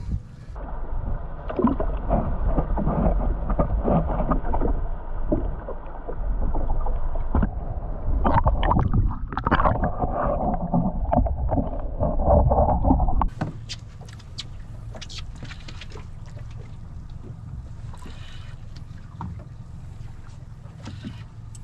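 Muffled underwater rushing and bubbling, heard through a camera held below the sea surface and heavy in the low end. About thirteen seconds in it cuts off sharply, giving way to quieter steady wind-and-water noise with scattered clicks aboard the boat.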